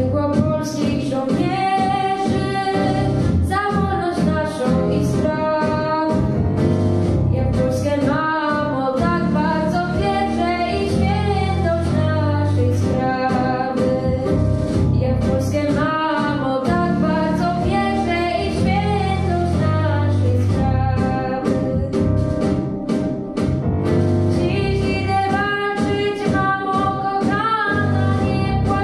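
A teenage girl singing a Polish song solo into a microphone, over an instrumental backing track.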